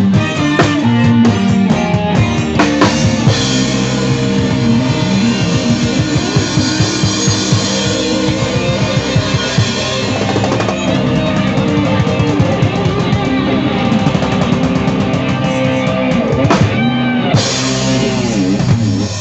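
Live dangdut band playing, with the drum kit up front over electric guitar, bass and keyboard.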